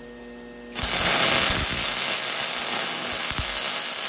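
Wire-feed welder arc striking about three-quarters of a second in, then a steady, loud crackling sizzle as a bead of weld is laid around a slowly rotating steel shaft to build up its worn surface.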